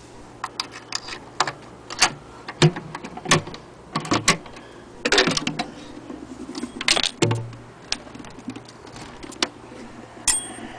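Scattered clicks, taps and knocks from an antique Singer 66K hand-crank sewing machine and its wooden case being handled, coming at uneven intervals rather than the steady rhythm of the machine running.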